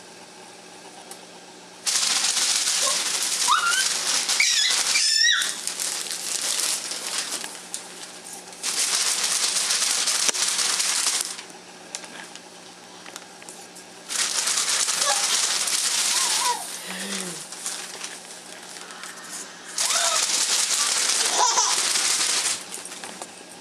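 A glossy paper advertising flyer crinkled and rustled in about four bursts of two to three seconds each, with a quieter rustle between them. Between the bursts a baby giggles and squeals in short rising and falling calls.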